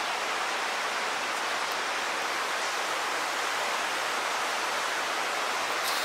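Floodwater rushing steadily through a concrete tunnel, an even, unbroken rush of water.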